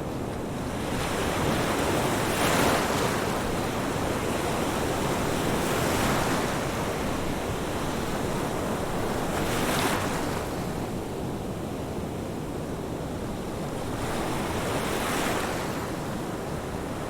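Ocean surf washing on the shore: a steady rush of water that swells four times, each wave a few seconds apart.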